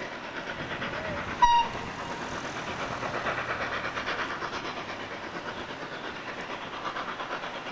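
Steam-hauled train of an FS Gr.981 rack locomotive and its coaches passing, a steady rumble with a rapid rhythmic beat. About a second and a half in comes one very short, shrill whistle toot, the loudest sound.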